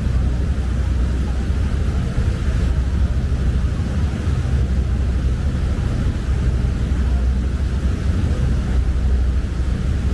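Passenger boat's engine running with a steady low rumble, with a faint hiss of water or wind over it.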